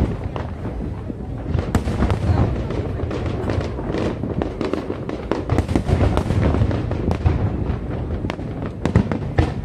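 Fireworks display going off continuously: a dense run of overlapping bangs and crackling over a steady low rumble, with sharper single reports about two seconds in and near the end.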